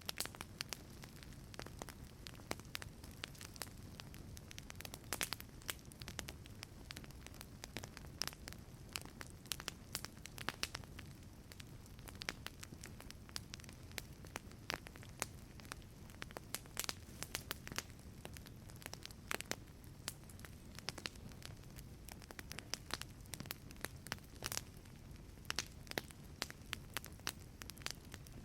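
Wood fire crackling in a fireplace: a steady low rumble of burning with irregular sharp pops and snaps scattered throughout.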